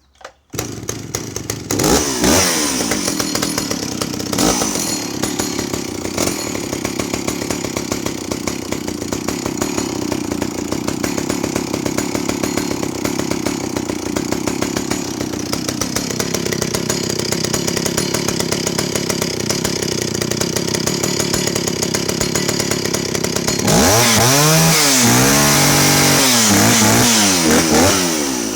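Stihl 041 AV 61cc two-stroke chainsaw starting at once and settling into a steady idle, with short throttle blips about two and four seconds in. In the last five seconds it is revved up and down repeatedly.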